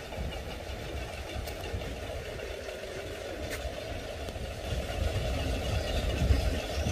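Wind-driven bird-scaring windmills in a rice field, clicking as they turn: a steady, fast mechanical clatter that grows a little louder in the second half.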